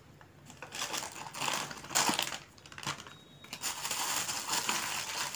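Plastic packaging wrap crinkling and rustling in irregular surges as wrapped parts are handled and pulled out of a foam packing tray.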